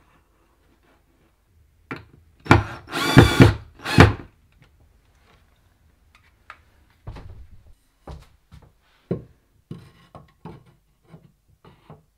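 Cordless drill driving a screw to fix a shelf bracket, running in a few short bursts between about two and four seconds in. After that come scattered light knocks and clicks as the bracket and rail are handled.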